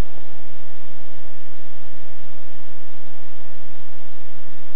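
Steady hum and hiss with faint constant tones and no distinct events.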